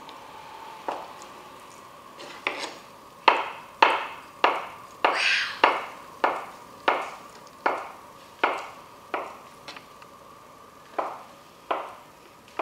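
Kitchen knife chopping tofu on a plastic cutting board: a run of sharp taps as the blade goes through and strikes the board, about one to two a second, with a pause near the end before two more. A faint steady high hum runs underneath.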